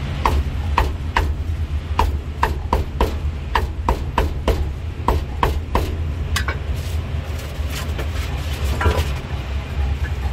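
Steel cleaver chopping braised pork on a thick round wooden chopping block: sharp chops about two or three a second for roughly the first six seconds, then only a few scattered ones.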